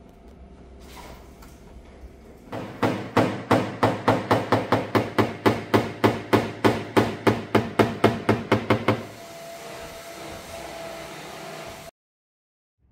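Paintless dent repair tapping: a knockdown tool struck rapidly and evenly against a car door panel to level the dent, about four taps a second for some six seconds, then stopping.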